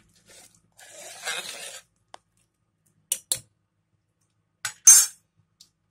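Steel ladle stirring curry in an aluminium pressure cooker pot: a short scraping stir about a second in, then sharp metal clinks of ladle on pot, the loudest near the end.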